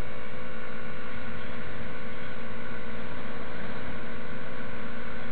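Yamaha MT-03 motorcycle cruising at a steady speed, its engine running with a constant even drone under a steady rush of noise.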